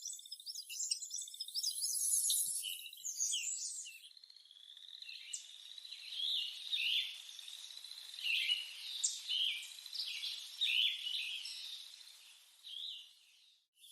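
Lettered aracari calling: a rapid run of short, high notes, then after a break, scattered sharp down-slurred calls over a steady high insect-like tone.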